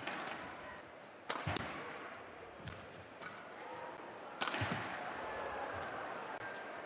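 Badminton rally: sharp racket-on-shuttlecock hits, one about a second in, one after about four seconds and one at the end, with lighter footfalls and shoe squeaks on the court between them over a low arena crowd murmur.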